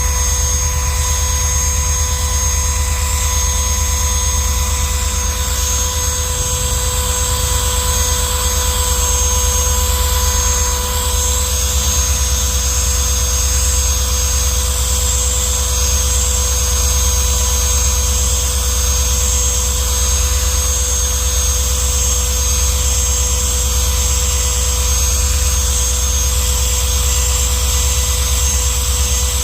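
Drill spinning a 3M stripe-off eraser wheel against a boat's gel coat, rubbing off old emblem adhesive. A steady, unbroken motor drone with a fixed whine.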